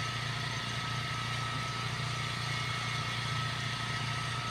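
Generator engine running steadily and loud, a constant low drone with a steady high tone above it.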